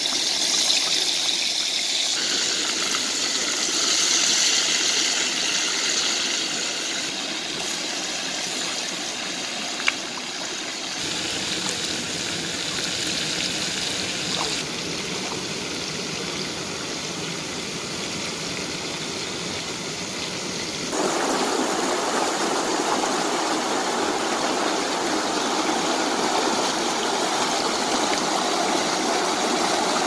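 Steady rush of a rocky stream's water, shifting at a few edits and growing fuller and louder about two-thirds of the way through. A single sharp click about a third of the way in.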